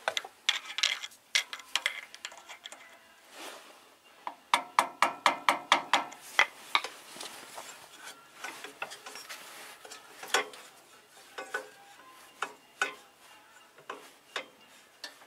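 Metal tools and engine parts clicking and clinking as they are handled, with a quick run of about ten evenly spaced, ringing metallic clicks a few seconds in.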